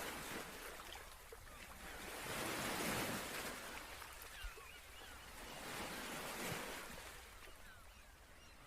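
Ocean waves washing in a steady ambience, swelling and easing about every three seconds, with a few faint high chirps.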